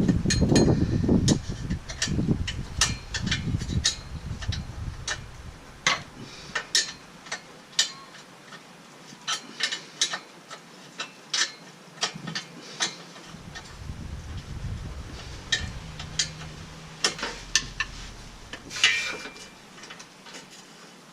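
Irregular metallic clicks and clinks of a ratchet spanner working the flange bolts on a 3-inch aftermarket exhaust, with low rumbling knocks in the first few seconds and again about two-thirds through.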